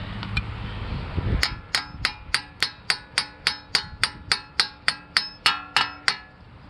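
A hammer striking metal in a steady run of about twenty quick, ringing blows, about four a second, starting about a second and a half in and stopping about six seconds in.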